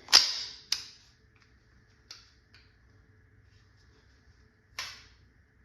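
Handling noise from an HPA-powered VKSK-style launcher. There is a loud sharp clack at the start and a second sharp click just after, then a few light clicks and a short hiss of air about five seconds in.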